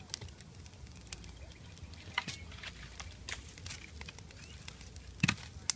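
Freshly lit kindling fire of paper and small sticks crackling in an earthen cob oven: irregular sharp pops and snaps, with two louder pops near the end.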